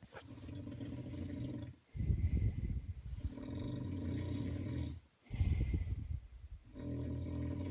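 A man snoring heavily: three long, rough, buzzing snores, one per breath, with short pauses about two and five seconds in.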